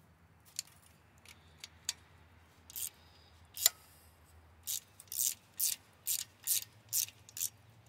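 Socket ratchet clicking as it is worked on an exhaust header bolt: a few light clicks and one sharp metal clink, then a steady run of about seven clicks, roughly two and a half a second.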